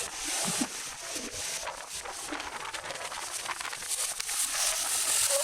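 Strong, gusty wind blowing over the anchored sailing yacht, a rushing noise that swells and eases.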